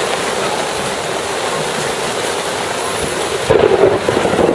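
Heavy rain pouring down onto the lake in a steady hiss. About three and a half seconds in, the rush turns louder and duller.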